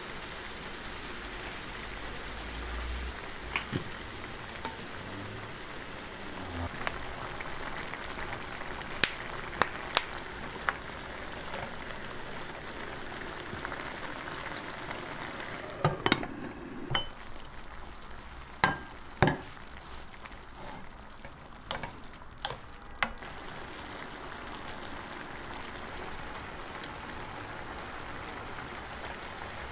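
Burdock root strips simmering in a sweet, sticky sauce in a nonstick frying pan: a steady bubbling sizzle as the sauce reduces, with scattered sharp pops.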